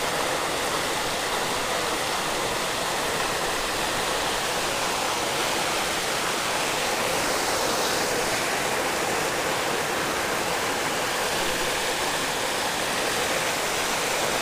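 Small creek waterfall rushing steadily as water spills through a low weir of concrete posts.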